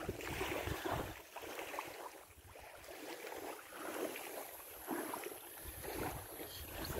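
Faint wind noise and rustling on a phone microphone, swelling and fading irregularly.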